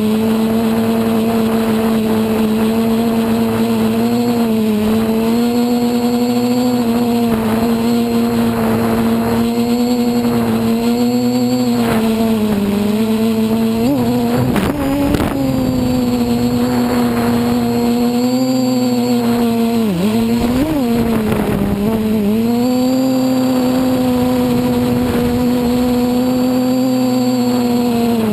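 Quadcopter's brushless motors and propellers whining steadily in flight. The pitch dips and wobbles sharply, briefly, about halfway through and again about three-quarters of the way in, as the throttle changes during manoeuvres.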